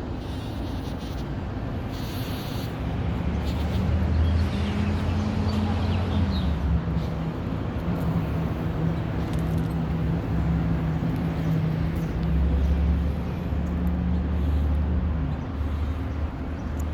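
Bumblebees buzzing as they forage, a steady low drone that begins about three seconds in, drops slightly in pitch around six seconds, and holds until near the end.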